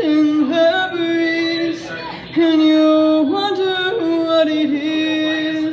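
A woman singing solo into a microphone, one voice holding long notes that step up and down in pitch.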